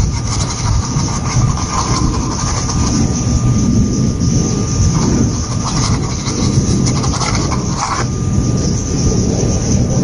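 Fan brush scrubbing and dabbing white oil paint onto a small stretched canvas, a continuous, uneven scratchy rumble as the bristles work the canvas surface.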